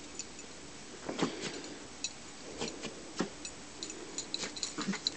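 Dogs moving and nosing about in snow: faint, irregular crunches and small ticks, coming more often toward the end.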